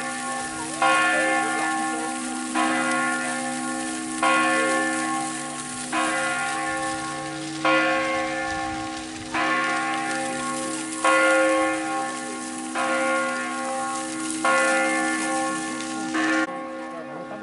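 Church bell tolling steadily, one stroke about every second and three quarters, each stroke ringing on into the next. The fountain splashes faintly underneath.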